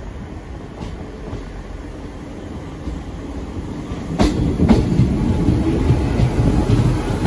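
Diesel multiple unit train approaching and running past close by, its rumble growing steadily louder. From about four seconds in, the wheels click sharply over the rail joints.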